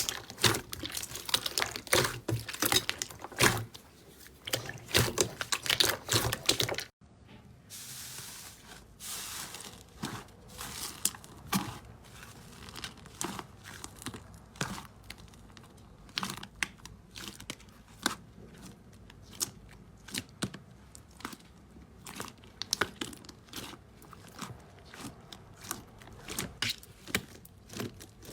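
Slime being squeezed and worked by hand, crackling and popping. The crackling is dense and loud until a sudden cut about seven seconds in, then quieter, sparser pops and crackles follow.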